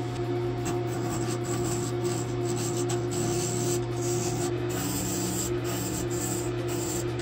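Wood lathe motor running with a steady hum while sandpaper is held against a spinning plywood disc, giving a continuous rubbing hiss.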